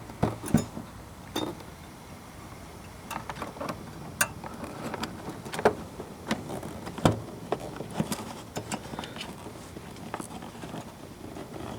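Scattered light clicks, taps and rattles of hands working an HID bulb and its wiring into a plastic headlight housing.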